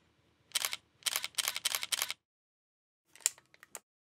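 Camera shutter firing: one shot, then a quick burst of about five frames in rapid succession, then a few fainter, shorter clicks near the end.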